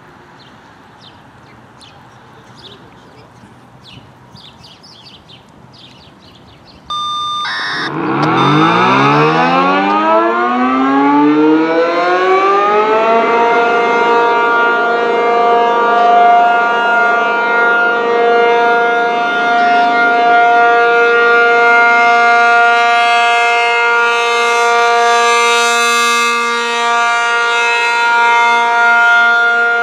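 A steady background hiss, then about seven seconds in a brief steady tone and an ACA P-50 rotating outdoor warning siren winds up, its pitch rising for about five seconds before settling into the steady alert signal as the horn turns.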